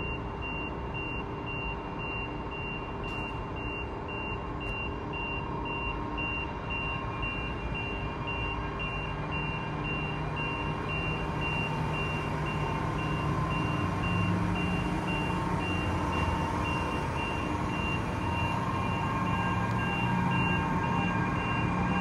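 Stadler double-deck electric multiple unit starting away from the platform, its traction hum growing louder from about halfway through as it gathers speed. A high beep repeats steadily throughout.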